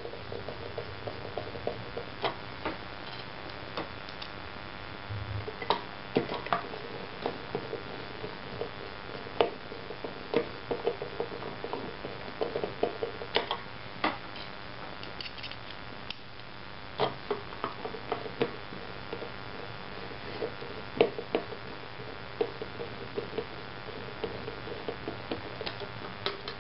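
Irregular light clicks and taps of small screws and hard 3D-printed plastic parts being handled, as self-tapping screws are started into the plastic chassis with a screwdriver.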